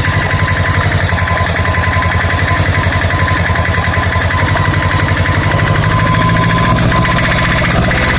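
Honda Goldwing GL1100 flat-four engine running at a steady idle with a rapid, even rattle. The number 2 spark plug wire is pulled, and dropping that cylinder makes no difference to the rattle.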